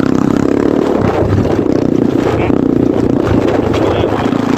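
Kayo T2 dirt bike engine running loud, its pitch wavering up and down with the throttle.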